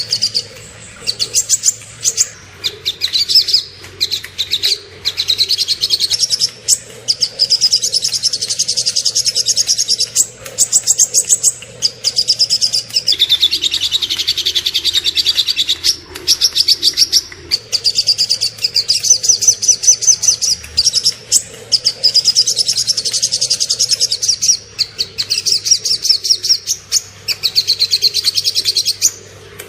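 Small songbirds singing fast, high trilling chirps in short back-to-back phrases with brief gaps: the rapid 'tembakan' (shot) trill bursts of a masteran tutor recording. In the middle the song drops somewhat lower in pitch.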